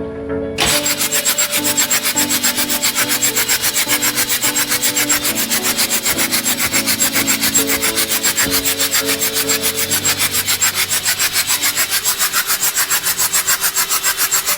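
A rapid, even series of rasping hisses, several each second, starting abruptly about half a second in and cutting off suddenly at the end, over background music.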